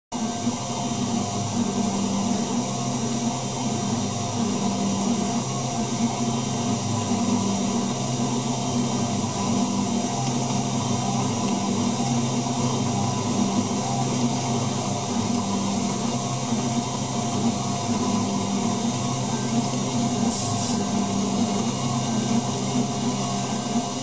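A DIY mini mill, its spindle driven by a treadmill motor, runs steadily while a small end mill cuts an aluminium plate. A low hum drops in and out every second or two over a steady whine and hiss.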